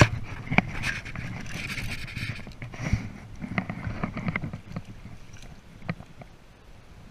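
Water splashing and sloshing as a grilse (young Atlantic salmon) is drawn into a landing net, strongest in the first few seconds. Sharp knocks and clicks come from the rod, reel and net handle being handled close to the microphone, the loudest at the very start.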